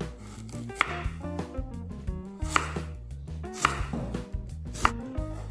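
Kitchen knife slicing through a peeled sweet potato and knocking on a wooden cutting board, four separate chops, over background music.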